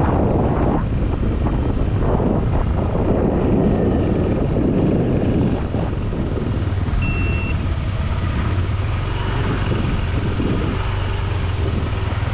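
Motorcycle engine running while riding, with heavy wind buffeting on the microphone that eases about six seconds in. A brief high-pitched beep about seven seconds in.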